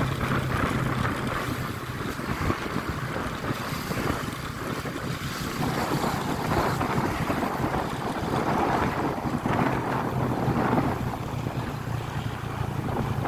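Wind buffeting the microphone: a continuous rushing noise over a steady low hum.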